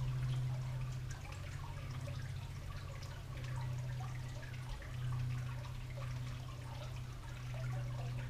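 Garden water fountain trickling and dripping steadily, over a steady low hum.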